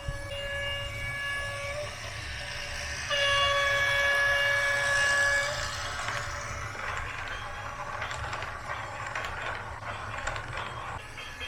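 A horn sounds twice as a steady, single-pitched honk: first a held note up to about two seconds in, then a louder one from about three to five and a half seconds. After that comes a rough, rattling, clattering noise with many small clicks.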